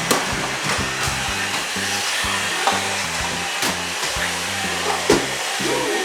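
Steady whirring rush of a vacuum cleaner running, over background music with a stepping bass line, with a few light knocks, the loudest about five seconds in.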